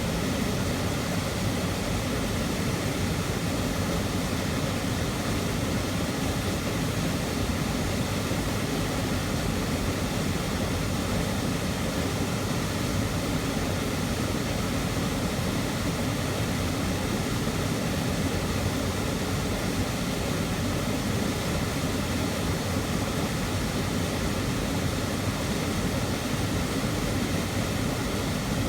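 Waterfall heard from right beside it: a loud, steady rush of falling water, deepest and strongest in the low range, with no change.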